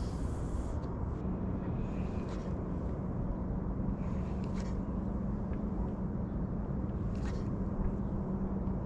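Low rumble of wind on the microphone, with a steady motor hum coming in about a second in and a few faint clicks.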